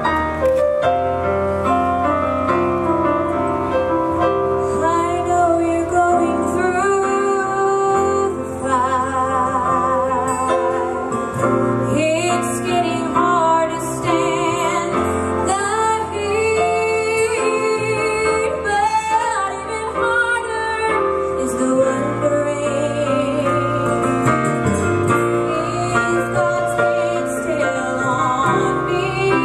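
Live gospel music: a woman sings lead into a microphone while playing a Roland stage keyboard, backed by the band's guitars.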